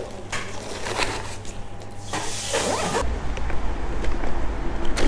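A plastic food bag rustling as it is stuffed into an insulated delivery backpack, with a loud rasp lasting about a second as the bag is closed. About three seconds in it cuts abruptly to a steady low rumble of wind on the microphone of a moving e-bike.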